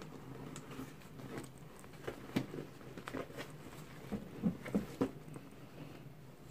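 Handling of a Damier Ebene canvas handbag and a black zippered pouch being slid in and out of it: soft rustling with a string of light clicks and taps, the loudest a quick cluster about four to five seconds in.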